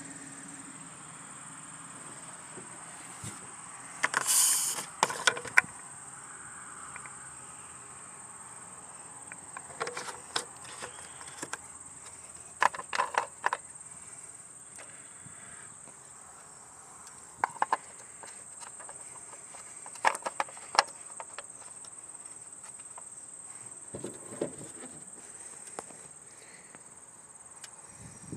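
Plastic oil filler cap being twisted off and handled on a Ford 4.6 L InTech 32-valve V8's valve cover: scattered clusters of short clicks and knocks every few seconds, the loudest about four seconds in. Under them runs a steady high-pitched whine.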